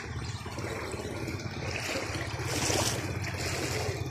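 Mitsubishi L200 Triton pickup wading through floodwater: a steady low engine hum under the rush and splash of water pushed aside by the truck, the splashing swelling loudest about two and a half seconds in.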